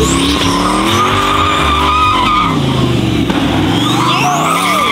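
LS-swapped, turbocharged Nissan 350Z V8 drifting: the engine revs fall about halfway through and climb again, over a steady high tire squeal.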